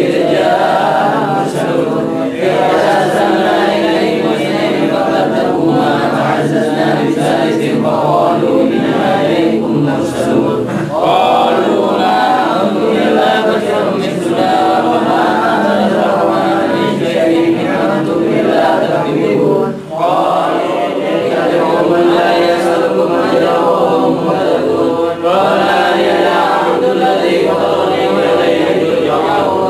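A group of voices chanting together, unaccompanied, with a short break about two-thirds of the way through.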